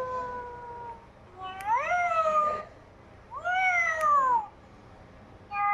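Electronic toy cat playing recorded cat meows through its speaker: a long falling meow trails off in the first second, then two more meows, and another sound begins near the end.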